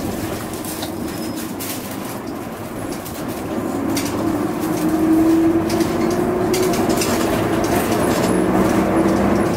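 Running sound inside a Hino Rainbow II medium-size non-step city bus: the diesel engine note swells about four seconds in and stays up, with scattered short clicks and rattles.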